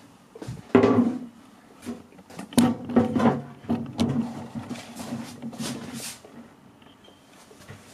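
Irregular knocks and clatter of kitchen objects and the camera being handled, the loudest knock about a second in, with a short low ring after some of them.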